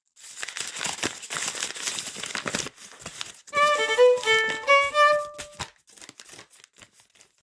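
A burst of clapping, then a short melodic phrase of a few clear notes from an instrument, stepping up and down, followed by a few faint claps.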